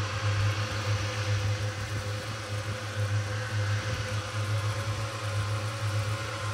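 Three small 12-volt DC cooling fans running on a car amplifier, blowing quite a bit of air: a steady whir over a steady low hum.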